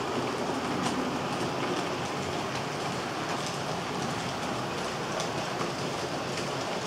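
A long train of model four-axle tank wagons rolling past on model railway track: a steady rushing of small metal wheels on rail, with light irregular clicks from the rail joints.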